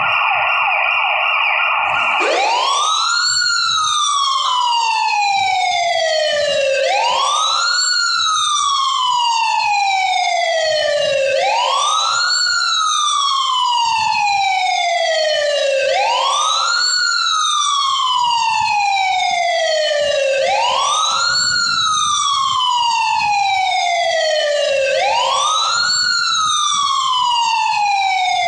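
Recorded emergency-vehicle siren sound effect on the mime's soundtrack. A fast, steady warble switches about two seconds in to a slow wail that rises quickly and falls slowly, repeating about every four and a half seconds.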